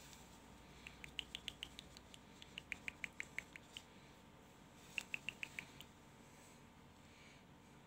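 Baby macaque giving rapid, high squeaks in three short bouts, about seven or eight squeaks a second.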